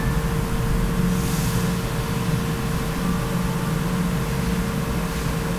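Steady background hum and hiss with a constant faint tone, and no distinct events.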